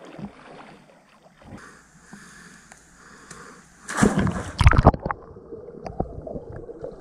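Water sloshing and gurgling at a camera held at the surface of a swimming hole. About four seconds in comes a loud splash as a swimmer dives in headfirst, followed by muffled underwater bubbling and gurgling.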